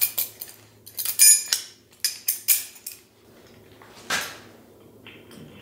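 Brass plumbing fittings clinking and clattering against each other as they are handled, several clinks ringing briefly like struck metal; a single knock about four seconds in as a fitting is set down on a wooden bench.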